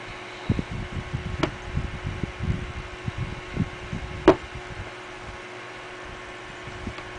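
Damp paper towel rubbing hand cream off an iPod Touch's glass screen: irregular low thuds and rubbing, with two sharp clicks, the louder one about four seconds in, over a steady hum.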